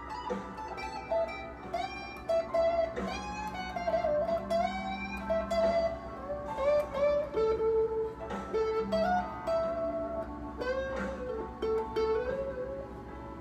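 Electric guitar, a Stratocaster-style solid-body, playing a slow blues lead in A: single-note phrases with string bends, held notes and short picked runs.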